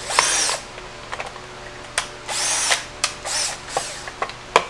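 Drill/driver set to its lowest torque setting driving screws into the trolling motor head, running in three short bursts, each a whine that rises and falls. Short clicks between the bursts, the sharpest near the end.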